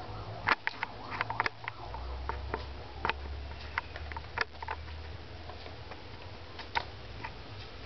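Pet rat pea fishing in a dish of water: irregular light splashes and taps as it paws and dips for the peas, a few sharper ones standing out, over a low steady hum.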